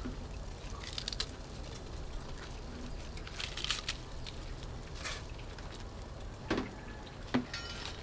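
Kitchen handling sounds as vegetables go into a steel pot of broth: napa cabbage pieces broken and dropped in, and greens and a plastic bag handled. There are a few short crackles and sharp knocks over a steady low hum.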